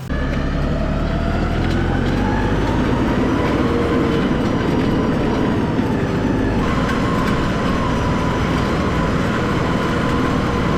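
A vehicle driving: a steady rumble of engine and tyre noise, with a whine that rises in pitch over the first few seconds as it picks up speed, then holds steady.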